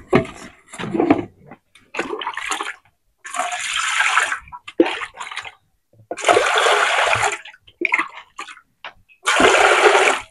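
Water poured from a plastic cup into a metal basin, in three splashing pours of about a second each, with shorter knocks and scrapes of the cup and lid between them.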